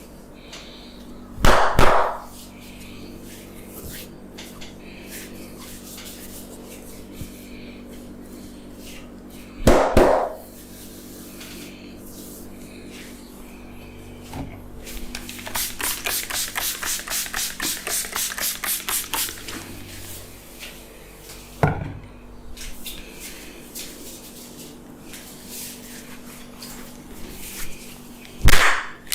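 Hand strikes of a barber's head massage: three loud single slaps spread through, and in the middle a fast run of chopping blows with the edges of the hands, about five a second for some four seconds, over a steady low hum.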